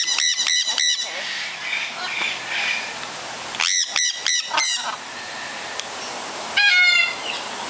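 Sun conure screeching: a quick run of four short, high, piercing calls at the start, another run of four about four seconds in, and a longer call near the end.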